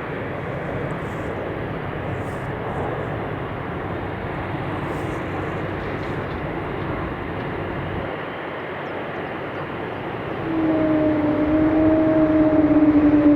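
Steady noise of a jet airliner's engines on a runway. About ten seconds in, a louder steady hum with two low tones joins.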